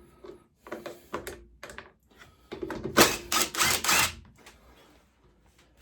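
Clicks, knocks and rattles of the air box being taken off a petrol lawnmower engine by hand. The loudest cluster of rattling comes about three to four seconds in.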